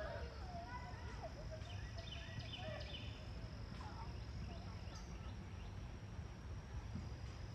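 Small birds chirping and calling: a few short, rising and falling chirps in the first second or so, then a quick run of high chirps a couple of seconds in, over a steady low rumble.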